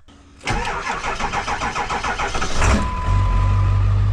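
Cold start of a 7.3-litre V8 truck engine: the starter cranks for about two seconds, then the engine catches and settles into a steady idle. A steady beep sounds for about a second just after it fires.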